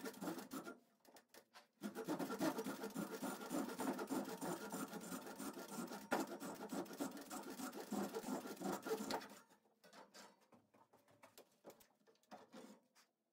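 Double-edged Japanese ryoba saw rip-cutting down a wooden plank clamped in a bench, in quick rhythmic rasping strokes. It pauses briefly about a second in and stops about nine seconds in, leaving faint scattered handling noises.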